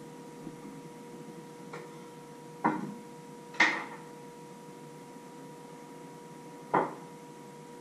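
Sharp knocks of kitchen items being handled and set down on a wooden counter: two about a second apart, then a third some three seconds later, with a few fainter taps before them. A steady faint hum runs underneath.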